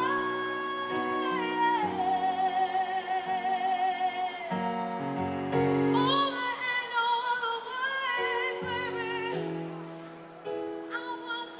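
A woman singing long, held notes with vibrato over sustained chords in a live pop performance; it grows quieter near the end.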